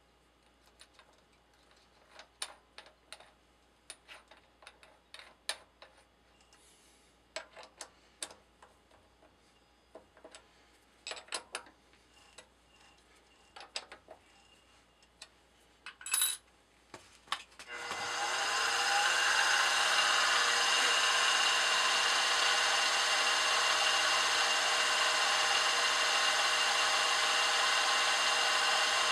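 Scattered light clicks and taps as a drill bit is fitted into the chuck of a small milling machine. About two-thirds of the way through, the mill's spindle motor starts, rising briefly in pitch, then runs steadily.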